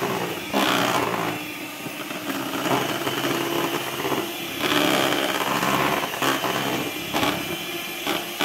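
Electric hand mixer running, its beaters whisking cake batter in a glass bowl; the motor's hum swells and dips as the beaters are moved around the bowl.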